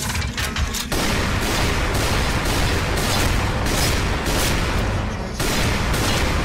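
Battle sound effects from an animated action scene: a dense, continuous barrage of gunfire and booms that starts abruptly about a second in.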